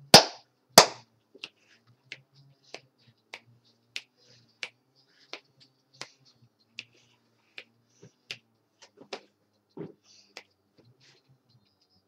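Hand claps: two loud claps in the first second, then much fainter sharp clicks keeping a steady beat of about three every two seconds, stopping about ten and a half seconds in.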